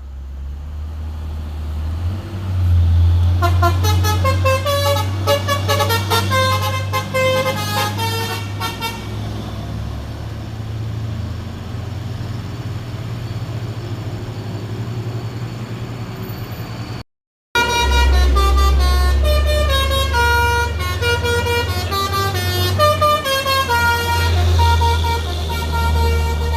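Hino 500 truck's 'telolet basuri' musical air horn playing a melody of stepped, held notes over the low, steady running of the truck's diesel engine. The tune plays twice, broken by a brief cut in the sound in the middle.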